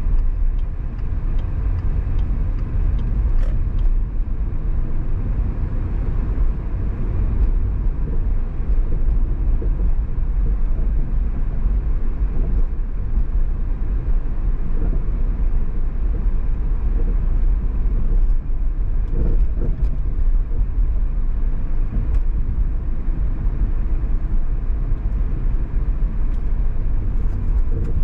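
Car driving on city streets: a steady low rumble of road and engine noise, with a run of faint, even ticks in the first few seconds.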